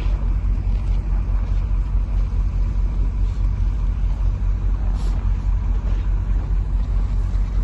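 Steady low rumble of a motor vehicle driving: engine and road noise.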